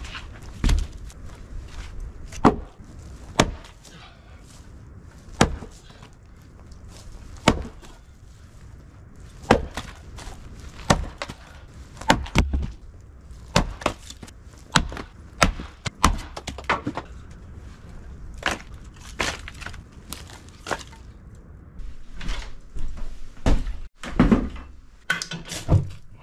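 Firewood being split with an axe: a long series of sharp chops and thunks, irregularly spaced, with the wood cracking apart.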